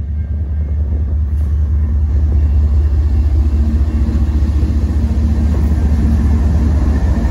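Diesel freight locomotive passing close by, its engine a loud, steady low rumble that grows louder over the first few seconds as the cab draws level and then holds.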